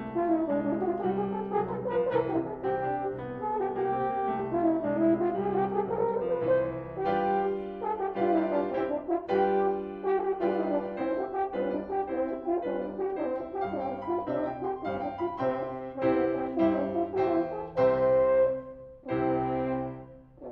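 French horn and piano playing a classical duet. Rising and falling runs fill the first several seconds, then the music moves in shorter, separated notes and chords.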